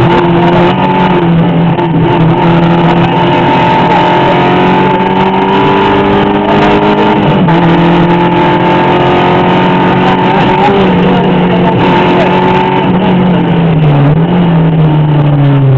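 An engine running loud and close at a fairly steady speed, its pitch wavering and dipping a few times in the last few seconds.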